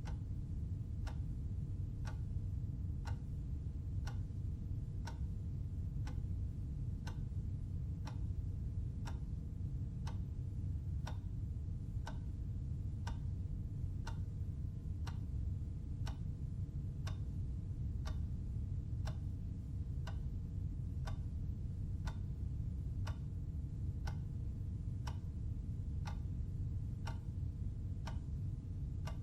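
Clock ticking steadily, about one tick a second, over a constant low rumble.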